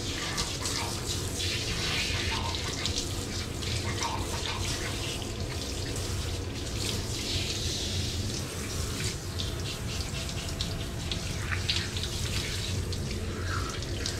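Handheld shower head spraying steadily as a Miniature Pinscher's wet coat is rinsed off, water running over the dog and splashing onto the floor.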